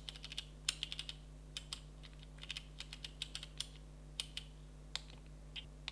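Panasonic GH5's rear control dial clicking through its detents as it is turned to scroll a menu list: a series of small, irregularly spaced clicks, some in quick runs.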